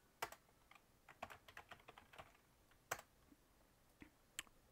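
Faint typing on a computer keyboard: scattered key clicks, with a few sharper ones standing out.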